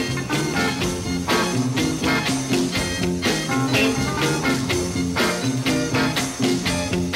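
Up-tempo soul music, the TV show's closing theme, with a steady beat and a repeating bass line.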